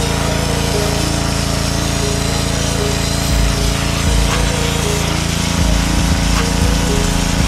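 A gas-engine pressure washer runs steadily, with the hiss of its wet sandblasting spray of water and sand blasting grime off a Toyota manual transmission case.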